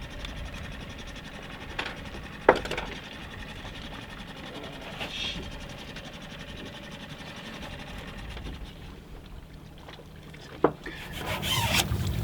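Handling noise as a sign is fitted onto a sailboat's boom: rubbing with a few sharp knocks, one at about two and a half seconds and another near the end.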